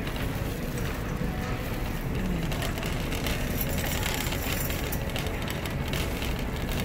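Wire shopping cart rolling over a hard store floor, with a steady rattle of its wheels and frame.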